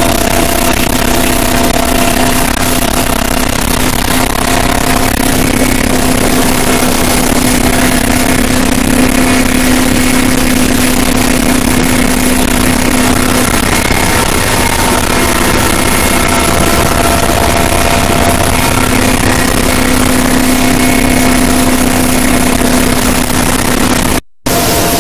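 Loud, steady helicopter cabin noise: the engine and rotor running, with a constant hum under a wide rushing noise. The sound drops out briefly about a second before the end.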